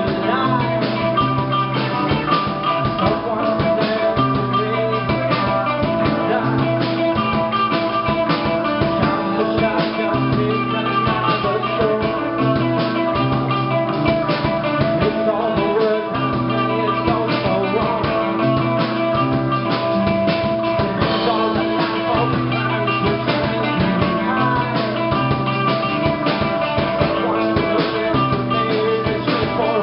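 Rock band playing live, with electric guitars, bass guitar and a drum kit keeping a steady beat.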